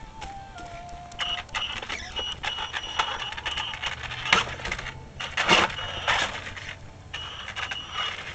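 An Axial Yeti RC rock racer crawling over logs and wooden timbers: its electric motor whines in short spurts on the throttle, over a busy run of clicks, knocks and scrapes from the drivetrain and the tyres on the wood.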